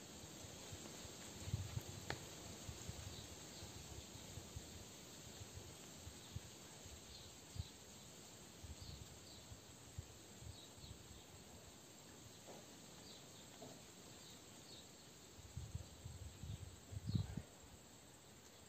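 Faint outdoor ambience with insects chirping: short, high chirps about once a second. Soft low bumps and a few clicks run through it, with a cluster of bumps near the end.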